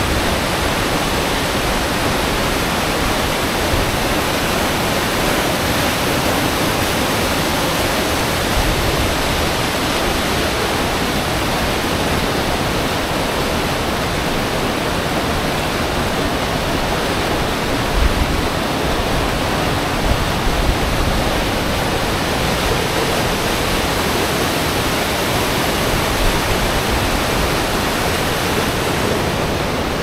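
Thompson Falls waterfall and the rapids below it: a loud, steady rush of falling and tumbling water, with a few brief low thumps around the middle.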